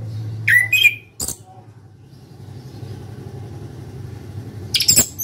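Chestnut-capped thrush (anis kembang) singing loud, sharp whistled phrases of quick sweeping notes: one burst about half a second in and another near the end. A short click follows the first burst, over a steady low hum.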